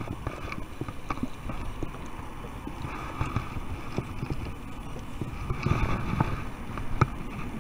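Scattered clicks and light knocks of fishing rods and reels being handled and locked into a kayak's rod holders, over a low rumble of wind on the microphone.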